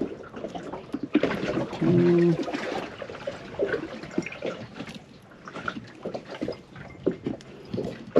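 Knife slicing an onion into thin slices on a cutting board: a run of irregular light taps and clicks. A brief low steady tone sounds about two seconds in.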